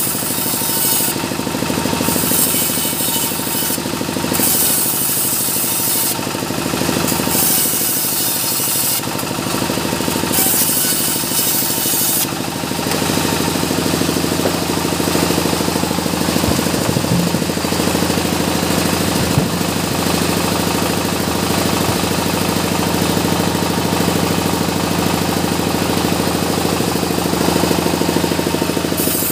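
Band sawmill with the blade cutting mahogany: a bright hiss comes and goes in several passes through the wood over the first dozen seconds, then the saw runs on without cutting, a steady mechanical hum.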